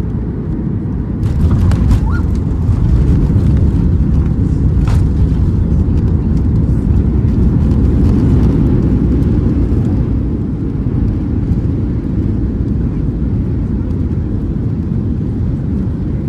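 Cabin noise of a Boeing 737-800 rolling on the runway just after landing, heard from a window seat: a loud low rumble of engines and wheels. It swells about a second in, with a few cabin rattles over the next few seconds, and eases after about ten seconds as the jet slows.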